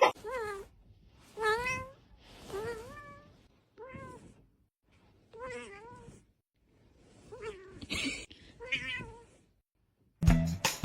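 Domestic cat meowing repeatedly: about seven drawn-out meows, each wavering in pitch, with short pauses between them.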